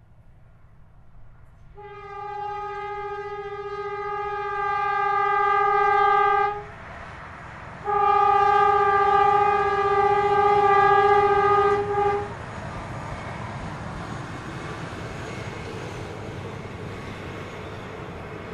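Diesel sugar cane locomotive sounding its horn in two long, steady blasts of about four and a half seconds each. After the second blast the loaded cane bins rumble past on the narrow-gauge track.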